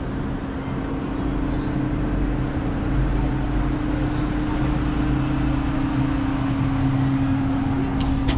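A vehicle running, with a steady low rumble and hum that get a little louder about a second in.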